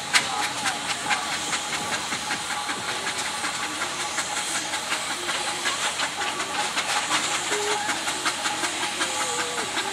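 Steam traction engine running, its exhaust chuffing in a quick, uneven beat over a steady hiss of steam.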